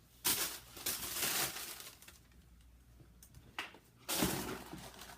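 Rustling handling noises in a few short bursts, with a sharp knock a little after three and a half seconds in, as the sneakers and their packaging are handled.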